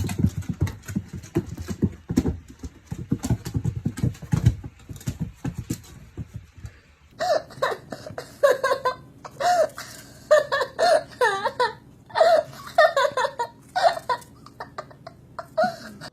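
An animal calling: a run of rapid low grunting pulses, then from about halfway through a string of short, high, bending cries repeated many times.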